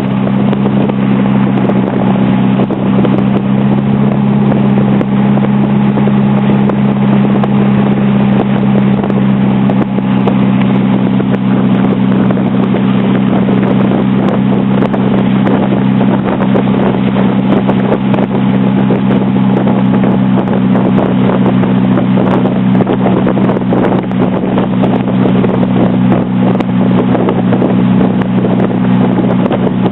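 Small river boat's motor running steadily under way, a loud, even low drone that holds the same pitch throughout.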